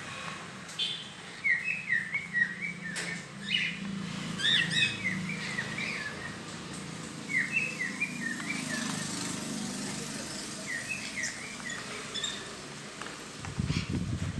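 Caged cockatiels and African lovebirds chirping in short repeated bursts, with a low hum underneath for several seconds in the middle and a brief low rumble near the end.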